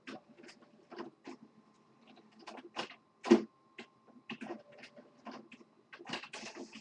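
Printer mechanism running as it finally takes a print job: irregular clicks and knocks, the loudest a little past three seconds in, with a faint steady whine through the middle.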